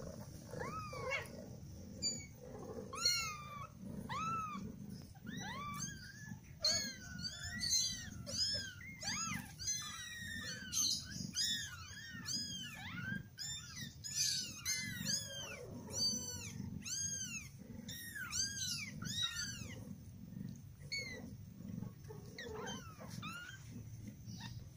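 A litter of very young kittens mewing: many thin, high squeaks that rise and fall, often overlapping, busiest in the middle and thinning out near the end. A low steady rumble runs underneath.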